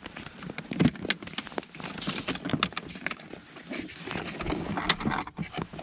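Rustling and handling noise of thick winter gloves and jacket fabric, with irregular soft crunches and clicks. Two sharper knocks come about a second in and near the end.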